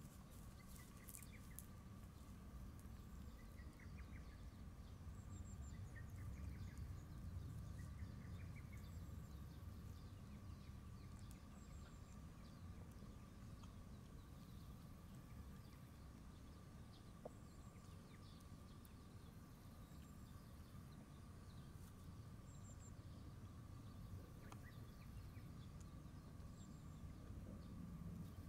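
Near silence: faint outdoor ambience with a steady low rumble. A few faint short chirps come in the first third.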